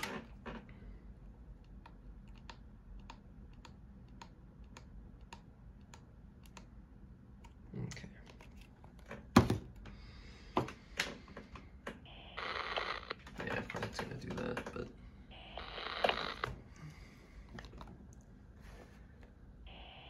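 Light clicks of buttons pressed on a handheld radio scanner's keypad. Later come two bursts of hissy, thin radio noise from the scanner's speaker, each lasting a second or two.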